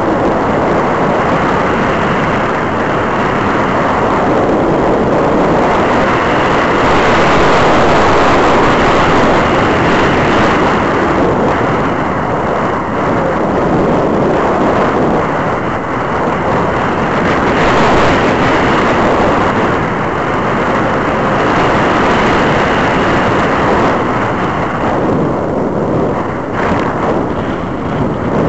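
Wind rushing over the onboard camera's microphone as a powered glider flies, a steady loud rush of noise with no clear motor tone.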